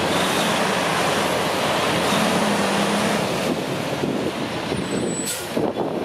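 Western Star dump truck's diesel engine running and its tyres rolling as it pulls past close by. A short hiss of air comes near the end.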